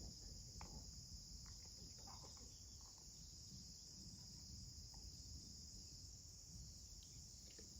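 Insects chirring in a steady, unbroken high-pitched chorus, faint under a low background rumble.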